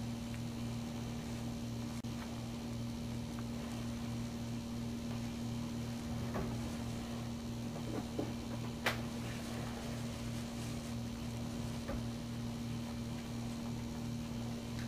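A steady low hum, with a few faint short clicks about six to nine seconds in.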